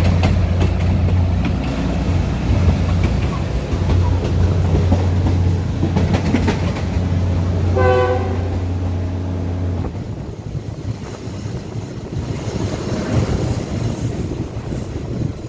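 Passenger train running, the carriage rumbling and rattling with wheels clacking over the rail joints. About eight seconds in comes a short horn blast, and about ten seconds in the deep rumble drops away.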